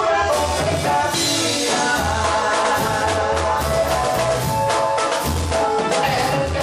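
A live band playing an up-tempo dance tune on drum kit and electric keyboards, with bass and repeated drum hits throughout.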